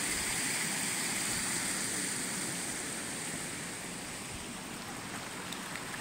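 Shallow mountain stream running over rocks: a steady rush of water that grows a little fainter after about two seconds.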